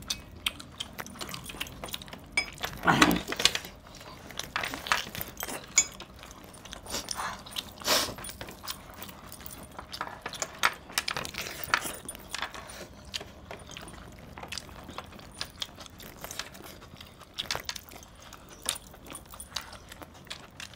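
Close-up eating sounds of a large piece of chicken being torn apart by hand and chewed, heard as irregular small clicks and crackles, a few louder ones about three and eight seconds in. Light metallic jangling and clinking comes from the heavy metal rings, bracelets and chains as the hands work.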